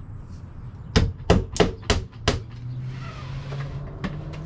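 Five quick hammer strikes on the sheathed wall, a little under a third of a second apart. A low steady hum sets in about three seconds in.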